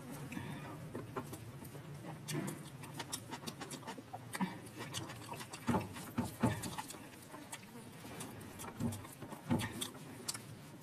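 A person chewing and eating close to the microphone: irregular mouth clicks and smacks, several a second, with a few louder ones.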